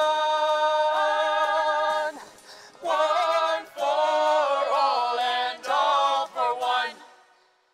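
A mixed ensemble of male and female voices singing together: a long held chord, then three short sung phrases, with the song ending about seven seconds in.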